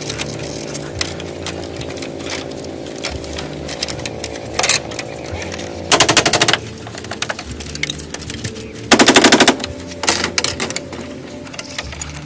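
Rapid mechanical rattling in three short bursts, over a steady hum.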